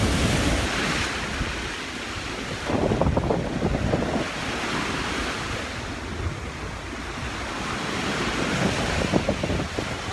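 Sea waves washing onto the shore, swelling in surges near the start, about three seconds in and again near the end, with wind rumbling on the microphone.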